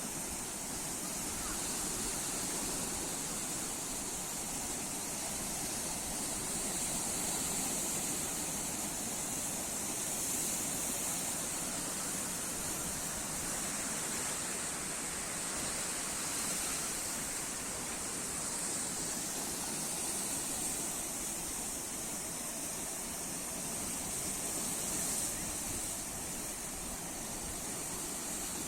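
Sea waves washing in and breaking, a steady rushing that swells and eases every few seconds.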